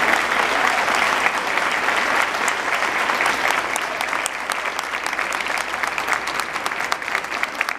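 Audience applauding: dense clapping that slowly fades and thins, so that single claps stand out near the end.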